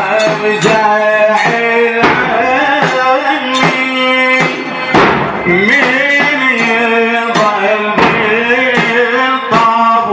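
A male voice chanting a Shia Muharram lament (latmiya), held notes bending up and down, over deep bass drum beats that strike every second or so.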